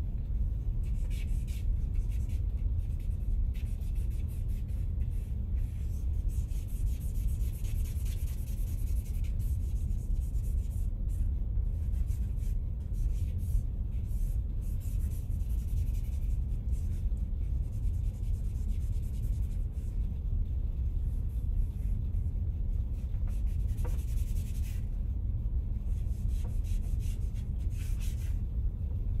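Stick charcoal scratching and rubbing on drawing paper in stretches of strokes that come and go, over a steady low rumble.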